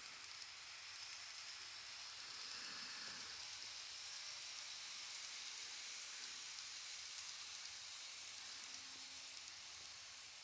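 KATO N-gauge model train running past on its track: a faint, steady high-pitched hiss of wheels on rail and the small motor, swelling a little as the cars pass close and easing near the end.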